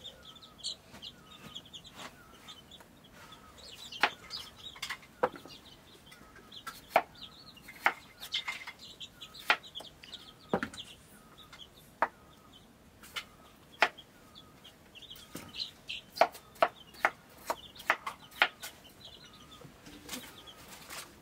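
Kitchen knife chopping mushrooms on a wooden cutting board: sharp, irregular knocks a second or two apart. Chickens cluck in the background.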